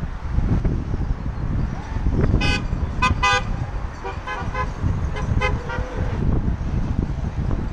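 Horns of passing cars tooting: a quick run of about three short toots about two and a half seconds in, then several fainter toots. Wind buffets the microphone throughout.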